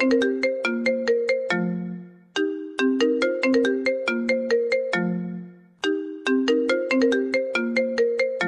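iPhone ringtone playing: a short melody of quick, plucked notes that ends on a held low note, repeating about every three and a half seconds.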